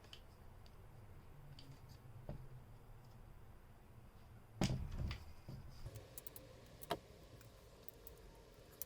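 A few faint clicks and knocks as an aluminium travel tripod's legs are handled and spread out to lower it towards the floor, the loudest about halfway through.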